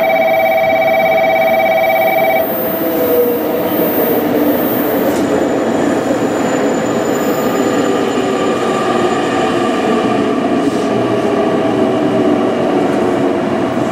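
A steady electronic tone chord stops abruptly about two and a half seconds in, and a JR Kyushu 883 series limited express train runs slowly into the platform, its running noise carrying several whining tones that slowly fall in pitch as it slows.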